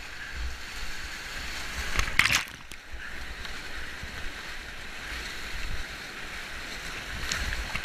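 Whitewater rapids rushing and splashing around a kayak's bow, with a steady low rumble of water close to the microphone. A louder splash comes a little past two seconds in.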